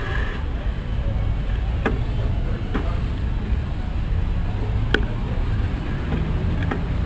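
Low, steady rumble of wind and road vibration on a bicycle-mounted camera riding slowly in city traffic. Four sharp knocks come through as the bike jolts over rough, cracked pavement.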